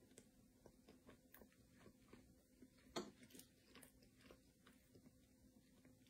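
Faint chewing of a microwaved Bird's Eye breaded cauliflower wing: a soft, chewy rather than crisp bite, heard as a run of small ticks with one sharper click about three seconds in.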